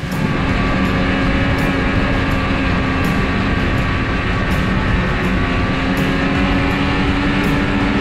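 A 600 EFI two-stroke snowmobile engine running at a steady cruising speed, heard close up from the sled itself, with an even pitch throughout.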